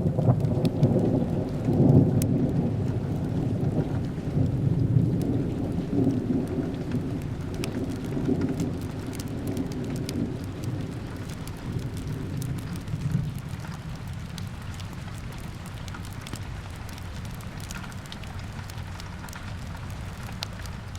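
A long roll of thunder that breaks in suddenly, swells and then fades away over about fourteen seconds, over steady rain. Small fireplace crackles are scattered throughout.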